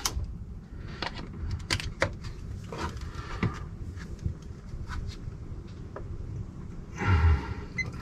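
Scattered light clicks and knocks from handling a power cord and a wooden cabinet door, with a louder rustling knock about seven seconds in.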